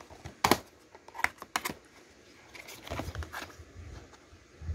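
Plastic DVD case being handled and opened: a few sharp plastic clicks in the first two seconds, then a stretch of rustling handling noise around three seconds in.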